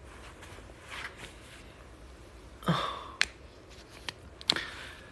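Quiet room tone broken by a short vocal sound, a brief 'hm'-like noise, a little past halfway. After it come a few sharp small clicks and taps of handling near the microphone.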